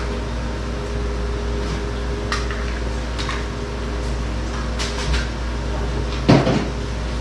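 Kitchen clatter: a few light clicks and knocks of dishes and utensils, then a louder knock about six seconds in, over a steady hum.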